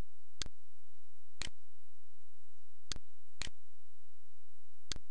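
Sharp, short clicks at irregular intervals, often half a second apart, over a steady low electrical hum.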